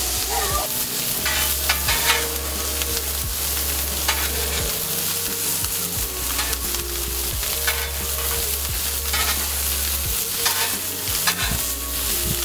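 Sausage slices and vegetables sizzling steadily on a Blackstone flat-top griddle, with two metal spatulas scraping and clacking against the steel cooking surface again and again as the slices are turned and spread.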